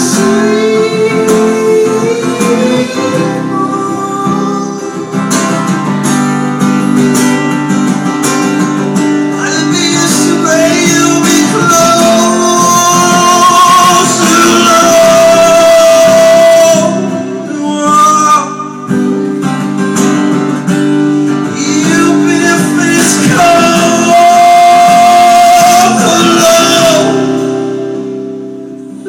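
A man singing live to a strummed guitar, his voice holding several long notes; the music fades down in level near the end.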